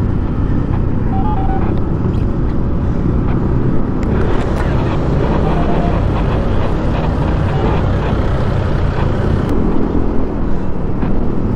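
Wind rushing over the microphone with a Honda scooter's engine and road noise underneath, while riding in traffic. It grows a little louder from about four seconds in as the scooter speeds up.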